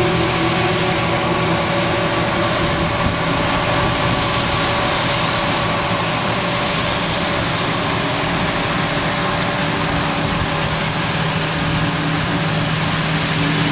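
Farm machinery engine running steadily under load, a constant hum with a dense rushing noise over it.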